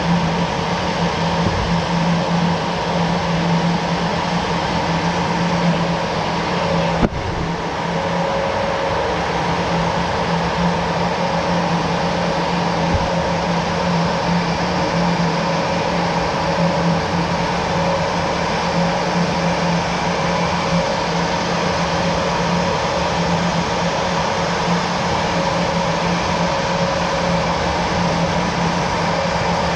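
Jet fighter engine running steadily: a constant low hum with a steady higher whine over a rushing noise. One sharp click about seven seconds in.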